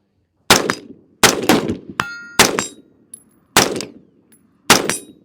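.45 pistol fired five times at a steady pace, about one shot a second, each crack followed by a short echo. A brief metallic ring sounds about two seconds in, between the second and third shots.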